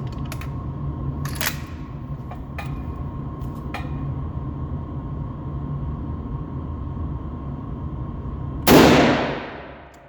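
A single rifle shot about nine seconds in, the loudest sound, dying away over about a second. Before it a steady low rumble runs with a few light clicks.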